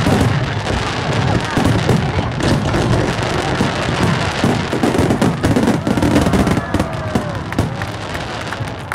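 Aerial fireworks display: many shells bursting in rapid succession, a continuous dense rattle of bangs and crackling.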